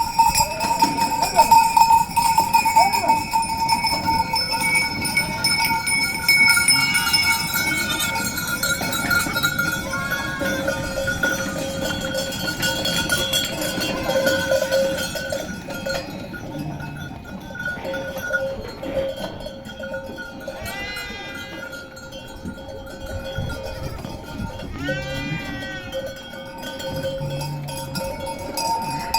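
Many livestock bells on a flock of sheep ringing together in a steady jangle, with a couple of short sheep bleats about two-thirds of the way through.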